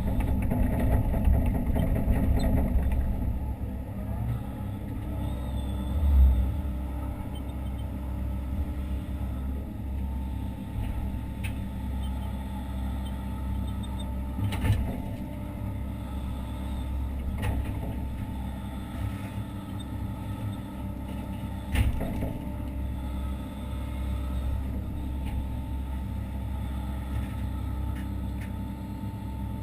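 Hitachi Zaxis 130 excavator's diesel engine and hydraulics heard from inside the cab, running steadily under working load. A few sharp knocks sound through it, at about 6, 15, 17 and 22 seconds.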